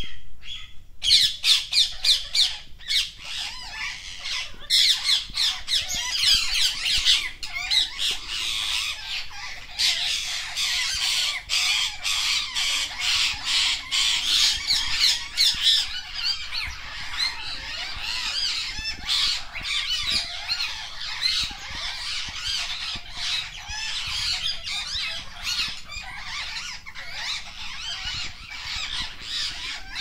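A flock of rose-ringed parakeets calling, many shrill, high calls overlapping without a break, loudest in the first half.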